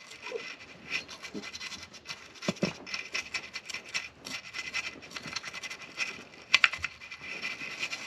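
Toothbrush bristles scrubbing an e-bike battery's connector terminals, a quick, irregular run of scratchy strokes, cleaning dust and corrosion off the contacts.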